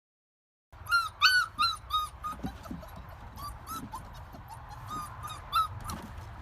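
A dog whimpering: a string of short, high-pitched whines starting just under a second in, loudest in the first second, then softer ones at an uneven pace.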